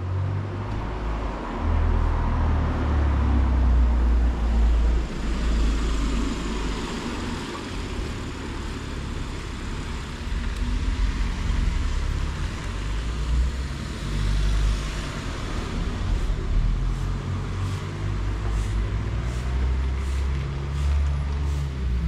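Road traffic close by: a large vehicle's engine running low and steady, with the hiss of tyres swelling as vehicles pass.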